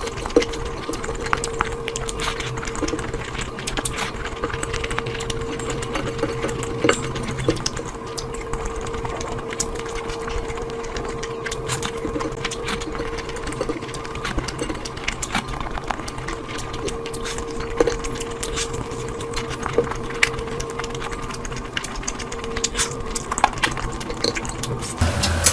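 Close-miked eating sounds: irregular chewing, smacking and mouth clicks over a steady hum.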